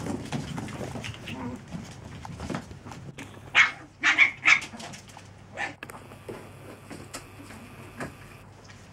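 Seven-week-old chihuahua puppies playing, with three sharp, high yaps in quick succession about halfway through and scattered small knocks and clicks of play.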